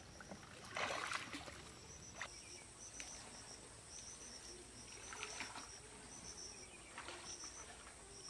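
Water swishing and sloshing in several soft surges as a person wades waist-deep through floodwater, with insects chirping steadily in the background.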